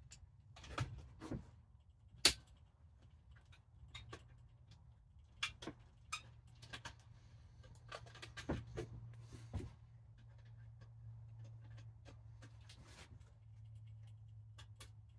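Channel-lock pliers clicking and knocking against the metal hood-star mount and plastic grille as the star is twisted a quarter turn to lock it. Scattered small clicks, with one sharp click a couple of seconds in and a run of knocks about halfway through.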